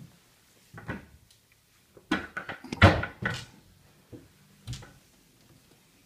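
A few short knocks and a quick burst of clattering about two seconds in, as household objects are handled.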